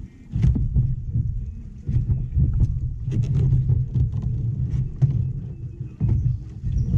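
Kayak hull and gear knocking and rumbling heavily into a kayak-mounted camera as the angler sits down and fights a hooked fish, with scattered sharp clicks throughout.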